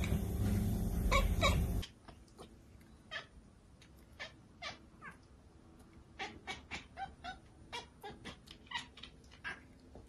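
Cats meowing. The first two seconds have a few meows over a loud steady background. After a sudden drop in level, many short, high meows follow one after another, about two a second.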